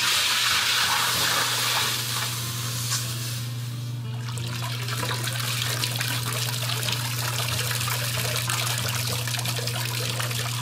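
Hot silicon-bronze sculpture quenched in a water barrel after an annealing heat: a loud hiss for about four seconds, then water trickling and dripping as the piece is lifted out and drains.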